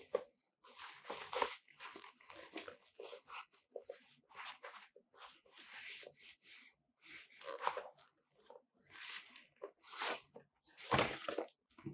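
Gloved hands handling and unfolding the black nylon fabric of an octagon softbox: a run of irregular rustles and crinkles, with the loudest rustle about eleven seconds in.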